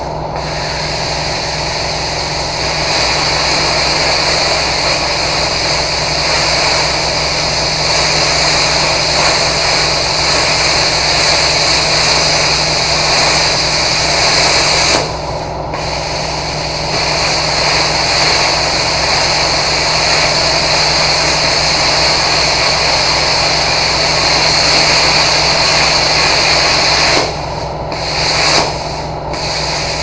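Plasma cutter torch hissing steadily as it cuts through the steel nuts on a bucket's bolted cutting edge. It cuts off briefly about halfway through and twice near the end as the arc stops and restarts.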